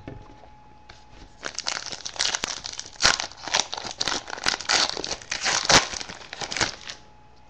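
A trading-card pack's wrapper being torn open and crinkled by hand: a run of sharp crackles and rustles from about a second and a half in, stopping near the end.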